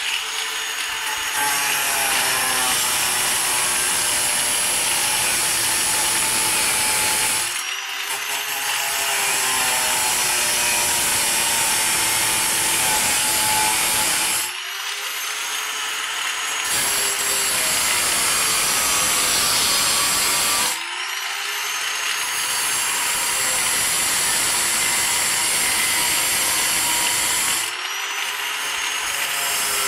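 A hand-held power tool running under load, with a hissing, grinding edge. It stops for a moment about every seven seconds, and the motor spins back up each time.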